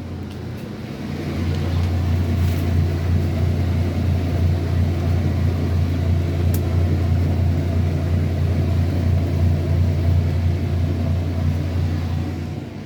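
Washing machine running with a steady, loud low hum, the motor and drum vibrating. The hum rises about a second in and drops away near the end.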